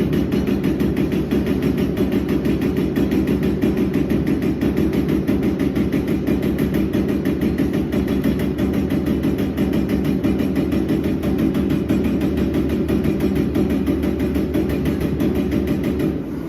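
Servo-electric CNC turret punch press punching sheet metal in rapid succession: a fast, even train of strikes over a steady machine hum, stopping just before the end.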